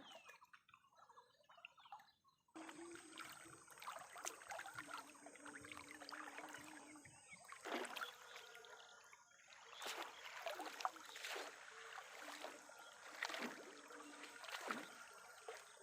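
Faint water trickling and splashing with scattered knocks and clicks. An abrupt cut about two and a half seconds in brings a busier, noisier stretch.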